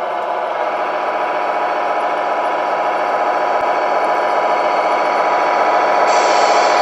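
Simulated diesel engine sound from the Tamiya Globe Liner's MFC-01 sound unit, running steadily through the RC truck's onboard speaker and growing louder as the truck drives toward the microphone. A higher hiss joins near the end.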